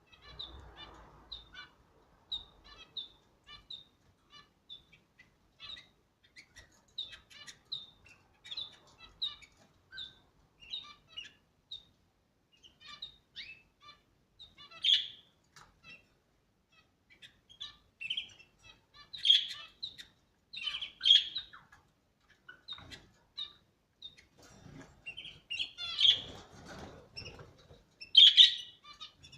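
A flock of exotic birds chirping: many short, high calls repeated throughout, louder and more frequent in the last third, with a stretch of rustling near the end.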